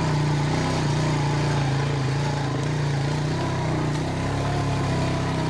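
A vehicle engine running steadily, a constant low hum with an even hiss over it.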